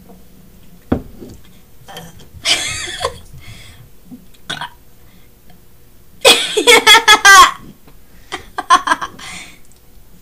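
Deliberate, loud burps, the longest and loudest drawn out over about a second, some six seconds in, with a shorter burp earlier and choppier ones near the end. A short knock comes about a second in.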